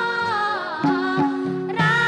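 Nepali folk song: a wavering sung melody over instrumental accompaniment, with a bass line stepping about three notes a second.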